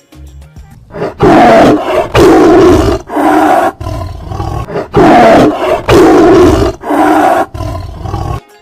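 Tiger roaring: six loud roars in two groups of three, with a short pause between the groups.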